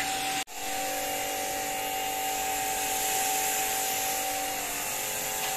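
Electric pressure washer running steadily, its motor and pump humming with a hiss of water spraying from the lance as foam soap is rinsed off a car. There is a brief break about half a second in.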